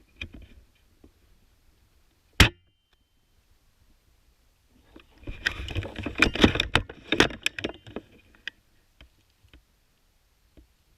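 One sharp airsoft gun shot about two seconds in, then about three seconds of rustling and knocking from a player moving through the undergrowth.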